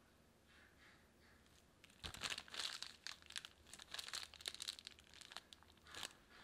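Disposable plastic piping bag crinkling as it is handled and squeezed: a quick run of rustles starting about two seconds in and lasting about four seconds.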